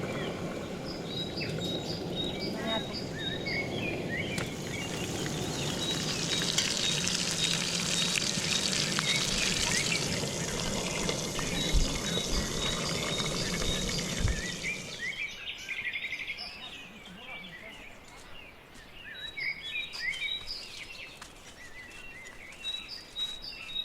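Songbirds chirping and calling over and over, including a repeated high note. For about the first fifteen seconds a steady rushing noise runs under them, then falls away abruptly.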